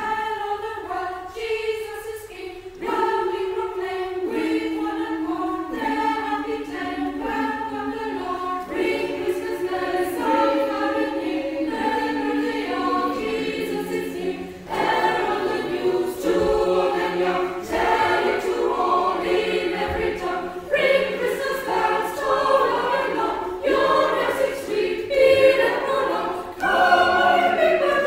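Choir singing in several parts, with long held chords that get fuller and louder about halfway through, in the reverberant space of a large stone church.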